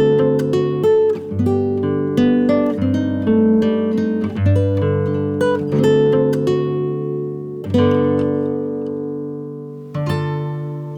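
Background music: acoustic guitar playing plucked notes and chords. About eight seconds in, a chord is left to ring and fade for a couple of seconds, then the playing resumes.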